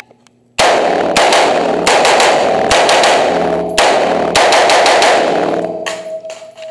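AR-15 rifle fire: a quick string of shots starting about half a second in, the reports smearing together in the heavy echo of an indoor range and dying away near the end.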